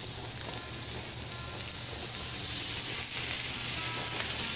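Seasoned redfish fillet searing in a smoking-hot, lightly oiled cast iron skillet: a steady sizzle as it blackens.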